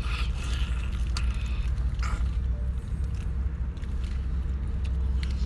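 Mouth-noise eating sounds of biting and sucking razor clam meat from the shells, with scattered short wet clicks, over a steady low rumble.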